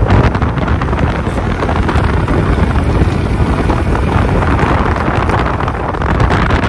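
Loud, steady wind buffeting the microphone on a moving motorbike, with the bike's running noise mixed in.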